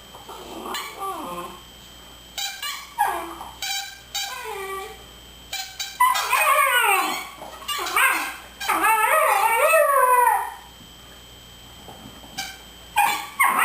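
German Shepherd puppy whining and yipping in howl-like bouts, its pitch bending up and down. The bouts come in several spells, the longest and loudest in the middle.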